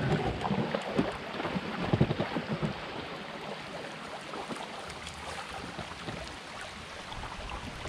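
Water running and lapping around a canoe hull in a shallow, fast river, with wind gusting on the microphone for the first few seconds, then a steadier, quieter rush of water.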